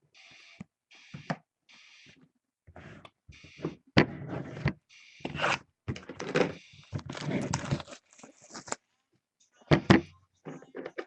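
Card-box packaging and card packs being handled on a table: irregular rustling and scraping, with sharp knocks about four seconds in and again near the end.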